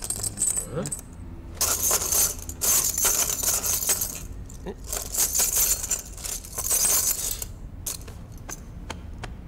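Coins clattering in two long jingling bursts, each lasting about two and a half seconds, with scattered clicks between and after them.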